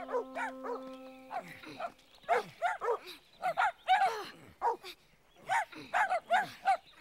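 Dogs barking in a quick string of short barks, starting about a second in, with a brief pause around the middle.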